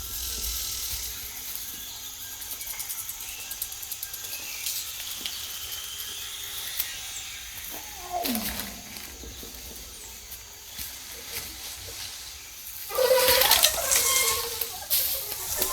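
Film sound design of a forest: a steady high chirring of insects, with a single falling animal growl about eight seconds in and loud creature snarls and calls starting near the end.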